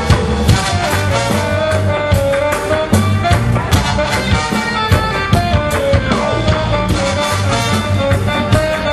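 Live reggae band playing, with a saxophone carrying the melody over bass and drums.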